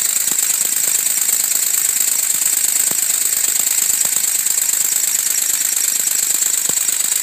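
Working model American LaFrance fire engine running at speed while pumping water: a fast, even mechanical chatter over a steady loud hiss.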